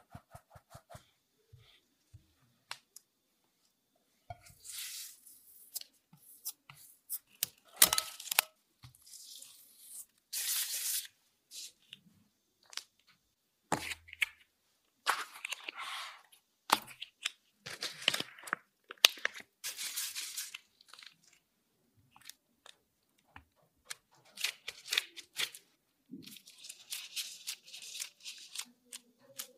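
Plastic crinkling and rustling in repeated bursts of a second or so: sealed plastic bags of filling being handled, then thin disposable plastic gloves rustling as filling is wrapped in dough.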